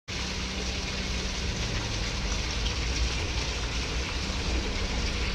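Steady hiss of water falling and splashing on wet concrete, with a low steady hum underneath.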